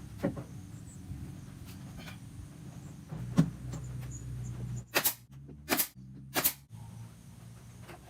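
Workshop sounds of a wooden speaker cabinet being put together: a few knocks over a low steady hum, then three short, sharp bursts about two-thirds of a second apart.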